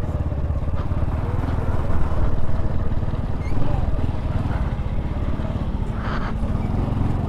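Honda Pop 110i's small single-cylinder four-stroke engine running as the motorcycle is ridden, a steady low engine pulse heard from the bike itself. There is a short hiss about six seconds in.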